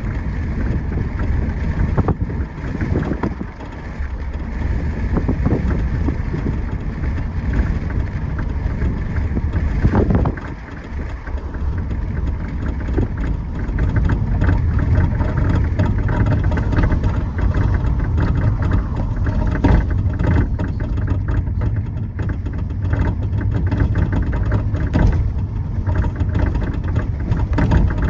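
2011 Audi A5 Quattro running with a steady low rumble, over which come many short sharp clicks from the rear passenger-side suspension. The owner suspects the top of the shock absorber or the sway bar.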